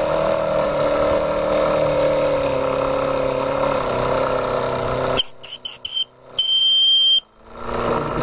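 A Martin Baylis twin-cylinder model marine steam engine running fast on high boiler pressure, with a steady hum that dips slightly in pitch about four seconds in. About five seconds in, the engine sound cuts out abruptly and a high, steady beep-like tone with short chirps takes over, broken by two brief near-silences, until the engine sound returns near the end.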